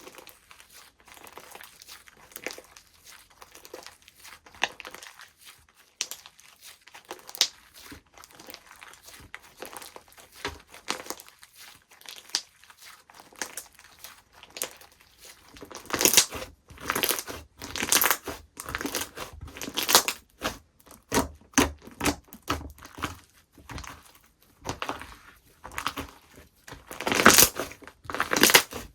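Slime being squished, stretched and poked by hand: irregular crackling and popping squishes, soft at first and louder and denser from about halfway through.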